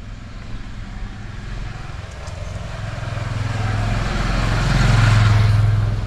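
A motor vehicle's engine running close by, growing steadily louder and loudest about five seconds in, as if approaching and passing.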